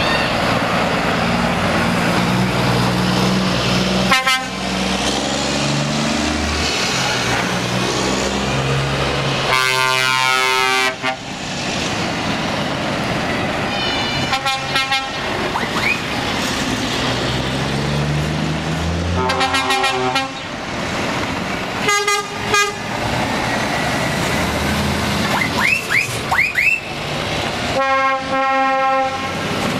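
Heavy truck diesel engines pulling away one after another, their low tone shifting as they move off, with repeated truck horn blasts: a long, loud horn about ten seconds in, shorter toots scattered through, and another sustained horn near the end.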